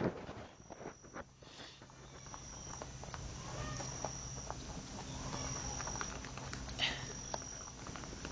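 Faint crunching and clicking of rabbits chewing dry dog kibble, over a short high chirp that repeats about every one and a half seconds and a low steady hum.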